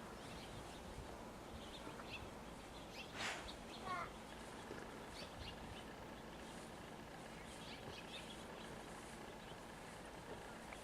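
Quiet outdoor background with faint, scattered bird chirps. There is a brief rustle about three seconds in and a short high call about a second later.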